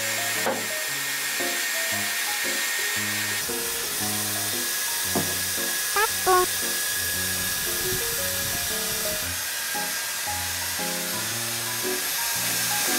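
Dyson hair dryer blowing steadily on a dog's wet coat, a continuous rushing hiss, with light background music playing over it.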